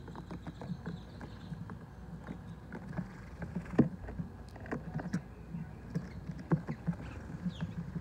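House sparrows pecking at food on a plate: a busy run of irregular small taps of beaks on the plate, with a couple of louder ones a little before the middle and about two-thirds through.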